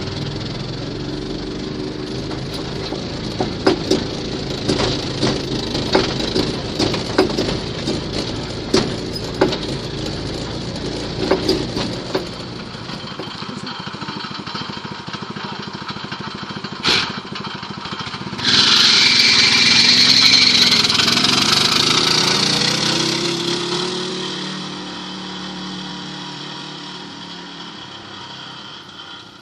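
Small single-cylinder walk-behind-tractor engine (6.5 hp) running in a VAZ 2109, with a steady drone and scattered clicks and knocks for the first half. About two thirds of the way in, a sudden louder rushing noise starts and then fades away toward the end.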